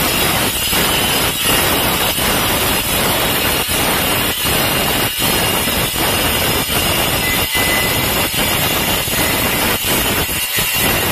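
Handheld angle grinder with its disc cutting through a porcelain tile: a harsh grinding rasp over a faint high motor whine, dipping slightly about every three-quarters of a second as the blade is worked along the cut.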